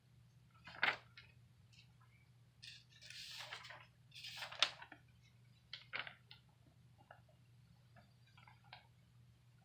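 Objects being handled: scattered clicks and knocks, the loudest a little under a second in and again about four and a half seconds in, with a rustle from about three to four seconds in, over a faint steady low hum.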